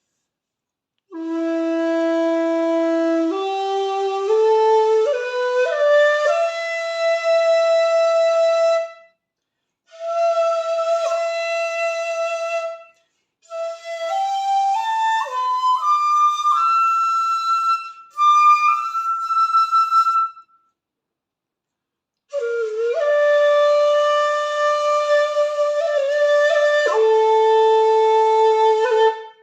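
Jinashi 1.6 shakuhachi of black madake bamboo played solo, breathy and clear. It climbs in held steps up a scale into the upper register, pausing between phrases, then sustains long notes near the end, dropping to a lower note.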